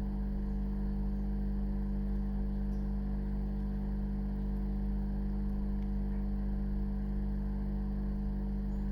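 Steady low electrical hum made of several fixed tones, unchanging throughout.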